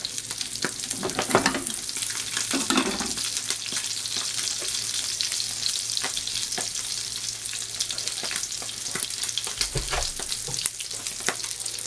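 Sea bass fillets sizzling skin-side down in melted butter in a frying pan, a steady hiss full of fine crackles and small pops. A brief low bump sounds near the end.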